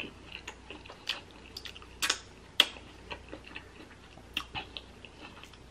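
A person chewing a mouthful of food with the mouth closed, close to the microphone: irregular wet mouth clicks and smacks, a few of them sharper, about one to two seconds apart.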